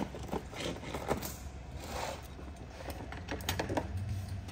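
Metal hand tools clicking and clinking against a race motorcycle's engine as its cylinder head is refitted. There are scattered light clicks, bunched together near the end, over a steady low hum.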